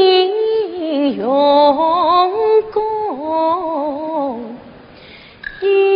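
Yue opera singing in the Yin-school style: a long, ornamented melodic line with sliding, wavering pitch that dies away about four and a half seconds in, then a new steady held note starting near the end.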